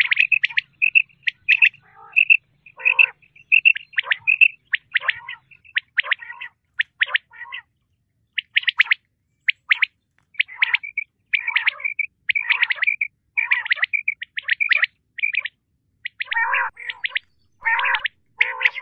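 Common quail calling: quick runs of short, clipped notes in clusters, broken by a pause of about a second a little before halfway. Rougher, lower notes join in toward the end.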